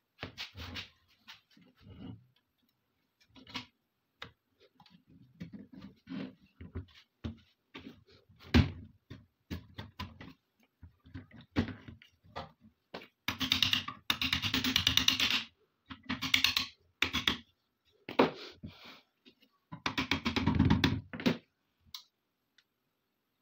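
Metal parts of an AK-47 clicking and knocking as they are handled and fitted together during reassembly. Two longer stretches of scraping rattle come a little past halfway and near the end.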